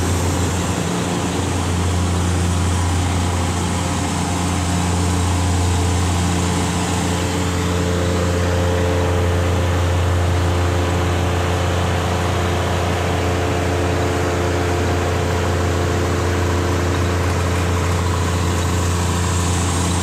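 Engine of a 10 gallon-per-minute pressure washer running steadily, a constant low hum with a steady hiss over it.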